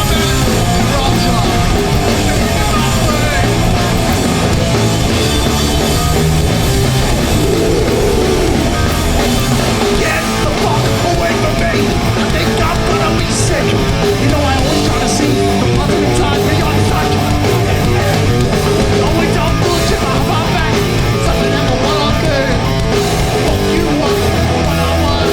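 Hardcore punk band playing live at full volume: distorted electric guitars, bass and drums in a steady, unbroken wall of sound.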